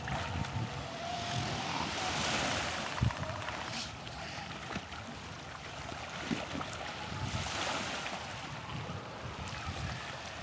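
Water washing and splashing in the shallows around two bull seals fighting, with wind rumbling on the microphone. The wash swells twice, and there is a single low thump about three seconds in.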